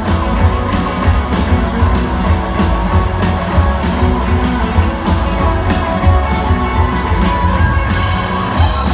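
Rock band playing live: a drum kit keeping a fast steady beat under electric guitars and bass.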